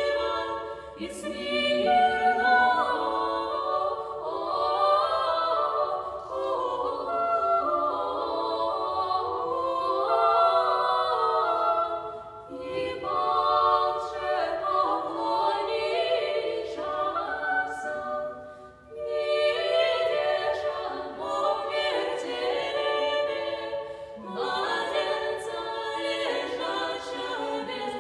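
A cappella vocal ensemble singing sacred music in several voice parts, in sustained phrases with short breaks between them.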